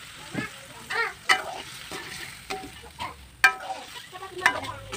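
Metal spatula clinking and scraping against a metal wok while pieces of fish in a little sauce are stirred: about seven sharp, ringing clinks, over a light sizzle.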